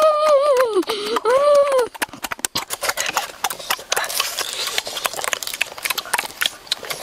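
A child's high, drawn-out "ooh" vocalisation that sags in pitch and rises again for the first two seconds. Then close-up eating sounds: a rapid, irregular series of cracks and clicks from crunching and chewing cooked crab shells.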